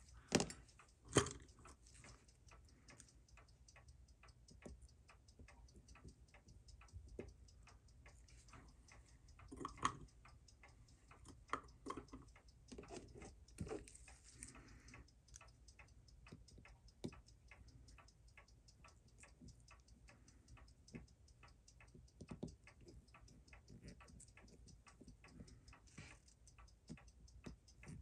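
Faint, fast, even ticking of a running mechanical watch movement, with a few louder single clicks of metal tools touching the movement, the loudest about a second in.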